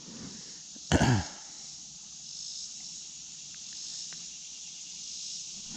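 Steady high-pitched chirring of insects such as crickets, with one short, loud thump about a second in.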